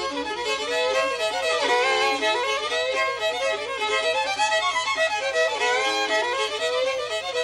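Two fiddles bowed together, playing a tune with quickly changing notes.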